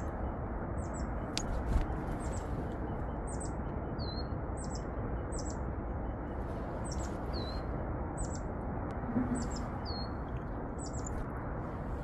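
Small wild tits calling: a run of short, thin, high-pitched calls, about one a second, each sweeping down, a few ending on a lower note, over a steady rushing background noise.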